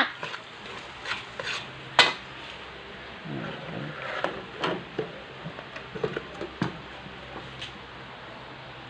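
A cooking utensil stirring corned beef and egg in a pan, clinking and scraping against it now and then over a faint sizzle; the sharpest knock comes about two seconds in.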